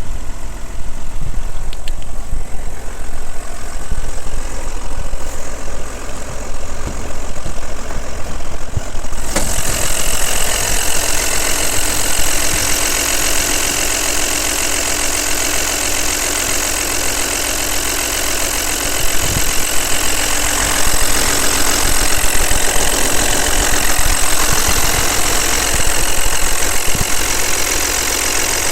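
Audi allroad engine idling steadily, with a noise the owner considers excessive. About nine seconds in, the sound turns suddenly brighter, with a strong hiss and whine over the low rumble.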